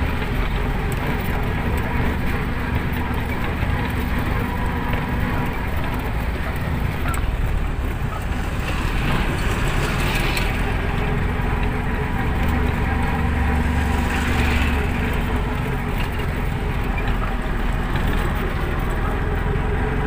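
Motor vehicle engine running steadily under a heavy low road rumble, swelling briefly twice a little past the middle.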